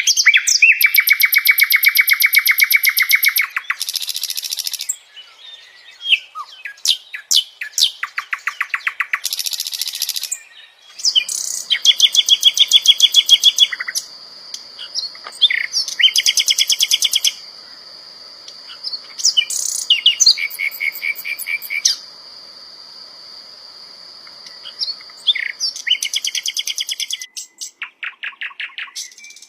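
A sikatan londo flycatcher singing: bouts of fast, rattling trills lasting one to three seconds, broken by sharp single chirps and short pauses. A thin, steady high tone runs beneath the song through the middle of the passage.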